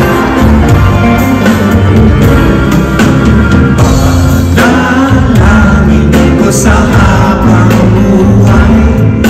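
A live band plays a song with two men singing into microphones over drums and bass guitar.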